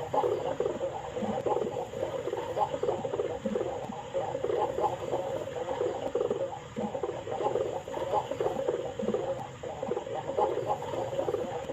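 Domestic pigeon cooing: low, repeated coos, one after another with little pause.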